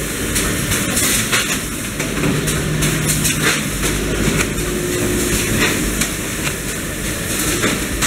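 Conveyors and automatic baling machine of a rice packing line running: a steady mechanical din with irregular clicks and knocks throughout.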